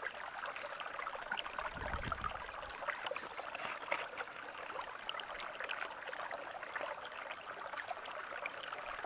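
Stream water running and trickling steadily through an aluminium sluice box, with small scattered ticks over the flow.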